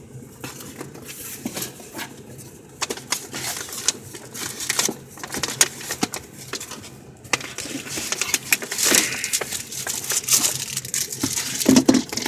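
A shipping package being opened by hand: packaging rustling and crinkling, with many irregular clicks and handling noises and a few louder knocks near the end.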